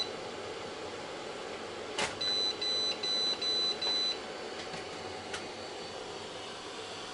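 Creality CR-10S control box beeper sounding five short high beeps in a row, just after a click, over a steady fan whir. It is the filament-change alert: the runout sensor has paused the print for lack of filament, and the printer is waiting for filament to be loaded.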